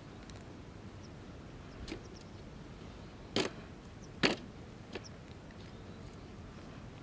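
A metal-legged folding camp table being opened out and set up: a few light clicks, then two sharp knocks a little under a second apart midway, and a faint click after them.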